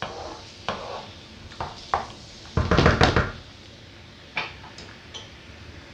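A wooden spoon stirring and scraping through a tomato and onion mixture in a nonstick frying pan, knocking against the pan now and then, with a denser clatter of knocks about two and a half to three seconds in.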